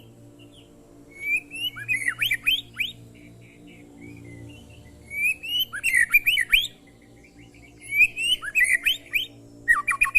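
White-rumped shama (murai batu) singing: four short bursts of quick whistled, chirping notes that glide up and down, with brief pauses between them.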